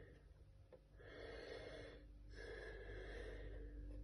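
A person breathing close to the microphone: two slow, faint breaths of about a second each, over a low steady hum.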